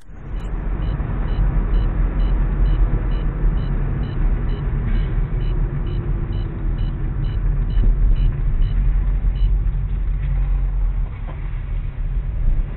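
Steady low engine and road noise of a car driving on a highway, heard from inside the cabin. A short high beep repeats a little over twice a second and stops about nine and a half seconds in.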